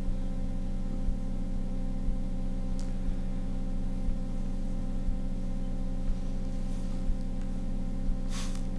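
Steady electrical hum from the hall's sound system, made of several fixed low tones, with a faint click repeating about once a second. A short rustle comes near the end.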